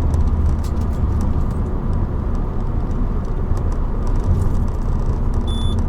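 Cabin noise of a Peugeot 407 Coupe's V6 petrol engine and tyres while driving, a steady low rumble, with the engine misfiring and the check engine light flashing. A short high beep sounds near the end.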